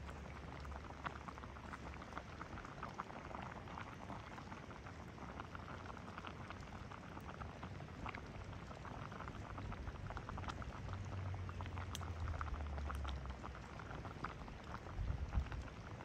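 Large pot of water boiling over a wood fire, bubbling steadily with a dense patter of tiny pops, and a low rumble underneath that grows stronger in the second half.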